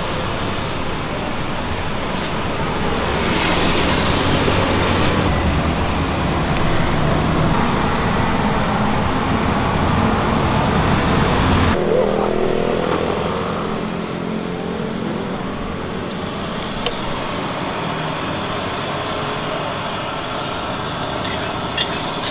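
Steady street traffic noise, swelling briefly as vehicles pass. After a sudden change about twelve seconds in, street noise continues, and near the end a few sharp metal clinks come from a spatula against a steel wok.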